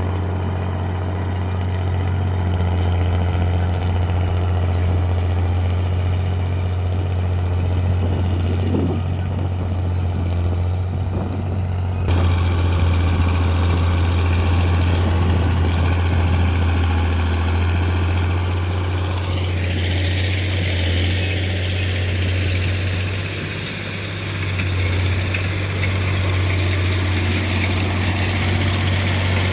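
FiatAllis AD9 crawler tractor's diesel engine running steadily with a deep, even hum. The sound changes abruptly about twelve seconds in and again about twenty seconds in, with more high-pitched noise in the last part.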